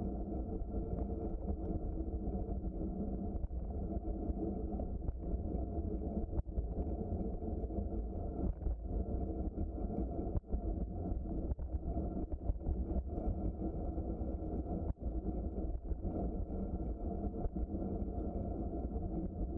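Steady low rumble of wind buffeting a bicycle-mounted microphone, mixed with the noise of the bike's tyres rolling along the trail, with a few brief dips.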